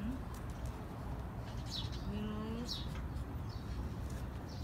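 Small birds chirping: a few short, falling chirps over a steady low background rumble, with a brief low hum about two seconds in.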